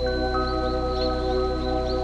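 Background music of sustained, bell-like tones held steady, with short high chirps over it.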